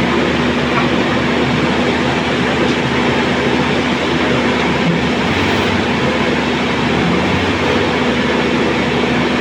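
Tow truck engine running with its rebuilt main hydraulic pump engaged and driving the wheel-lift boom, a loud steady drone with a constant hum. This is the test run of the pump after its scored shim was found, the fault that had left the boom unable to move.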